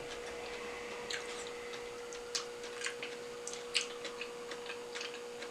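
Eating sushi: about half a dozen short, wet mouth clicks, chewing and lip sounds a second or so apart, over a steady faint hum.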